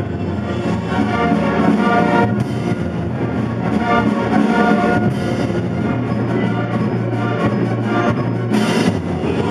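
Wind ensemble playing live, brass to the fore, with a low note held through the second half and a short noisy burst near the end.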